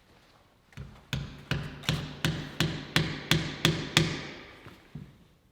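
A hammer driving a shim under a heavy stone piece to level it: about ten quick, even strikes, roughly three a second, each with a short low ring, tapering off to a couple of lighter taps near the end.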